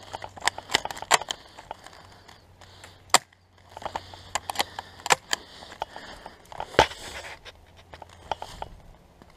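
Scattered sharp snaps and clicks of airsoft gunfire and BBs striking around the field, coming irregularly in small clusters, the loudest about seven seconds in.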